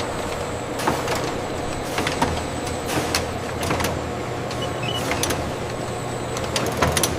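Steady machinery hum with frequent sharp clicks and clatters.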